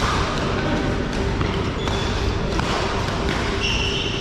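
Badminton rally on an indoor court: sharp pops of rackets striking the shuttlecock and footfalls on the court floor, with a few brief shoe squeaks, over the steady hubbub of a sports hall.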